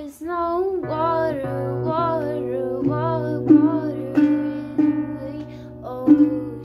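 A woman singing a slow melody while strumming chords on an acoustic guitar. The guitar comes in about a second in under her voice, with a fresh strum every second or two. The guitarist is a beginner.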